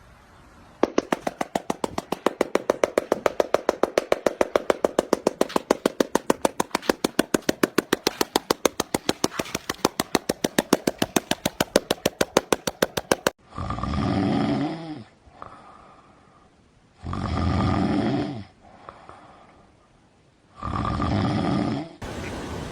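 A rapid, even run of clicks, about five a second, for some twelve seconds. Then three long, loud, snoring-like calls from a seal, each about a second and a half, spaced about two seconds apart.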